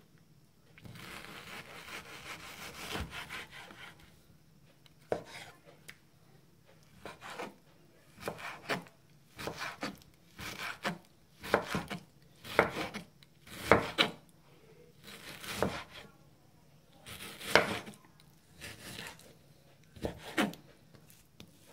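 Kitchen knife slicing raw chicken breast on a wooden chopping board. A drawn-out sawing rasp runs for the first few seconds, then comes a string of separate cuts, each ending in a sharp knock of the blade on the board, about one a second.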